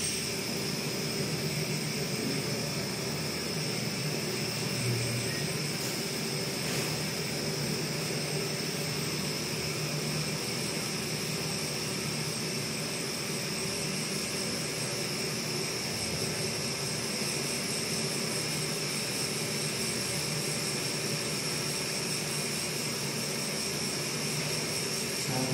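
Portable gas burner screwed onto a gas canister, its flame burning with a steady hiss.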